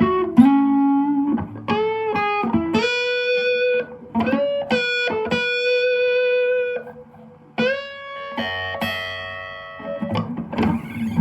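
Strat-type electric guitar (Gear4Music LA Select) playing a single-note lead solo through a Zoom G1Four multi-effects pedal, FoxGear Tweed 55 amp and Vox BC108 cab. The lead has bent notes and a long held note in the middle, with a few notes sounding together near the end.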